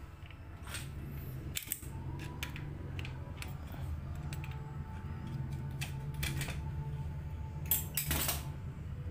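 Scattered metallic clicks and knocks as a foot pump's metal barrel tubes and a pair of locking pliers are handled, with the pliers gripping a fitting at the barrel end. A steady low hum runs underneath.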